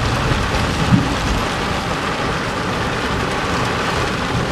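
Heavy rain falling on a moving car, with tyre and road rumble, heard from inside the cabin; a small knock about a second in.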